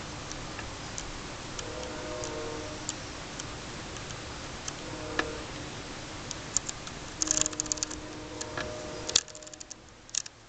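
The aperture ring on a Polaroid 195 Land Camera's Tominon f/3.8 lens is being turned by hand, giving scattered light metallic clicks. There is a quick run of clicks about seven seconds in and one sharp click about nine seconds in.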